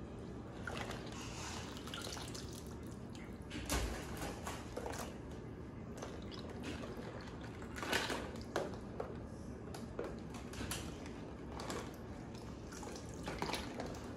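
Water splashing and dripping in short, irregular bursts as live blue crabs are lifted by hand out of a plastic basin of water. The loudest splashes come about four and eight seconds in.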